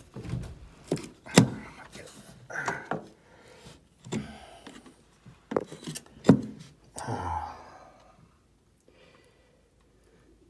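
Irregular knocks, taps and scraping on old wooden subfloor boards as they are handled and searched. About half a dozen sharp knocks, the loudest about a second and a half in, then it falls almost quiet near the end.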